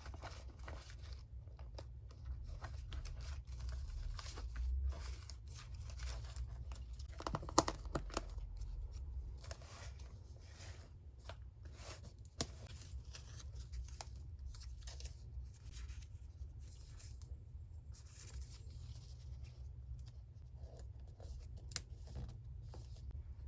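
Paper being torn and handled for a collage: irregular rustling and tearing with a few sharper taps, over a steady low hum.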